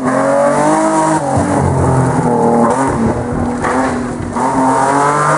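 BMW E30 rally car engine revving hard under acceleration. The pitch climbs and then drops back a few times as the driver shifts or lifts off.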